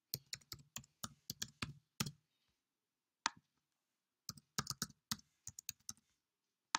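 Typing on a computer keyboard. A quick run of keystrokes is followed by a single click about three seconds in, then a second run of keystrokes and one more click near the end.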